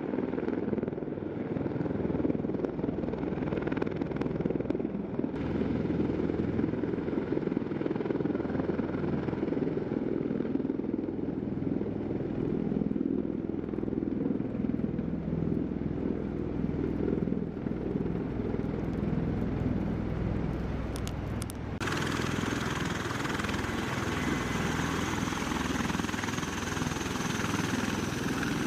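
V-22 Osprey tiltrotor running, a steady, loud rumble of rotors and engines. About three-quarters of the way through the sound switches abruptly to a brighter, hissier tone.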